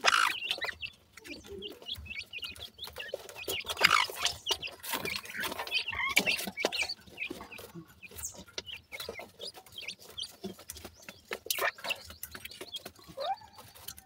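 Young francolin chicks calling with short chirping notes while they peck in loose soil, amid rapid clicks and crackling from the earth being pecked and crumbled by hand.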